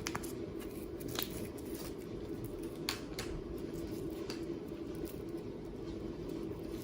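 Slime being handled: irregular small clicks and squishy snaps, over a steady low hum.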